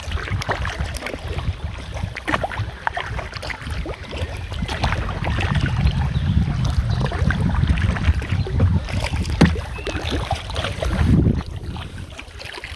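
A canoe being paddled on a lake: water splashing and sloshing from the paddle, with many short irregular clicks, and wind rumbling on the microphone.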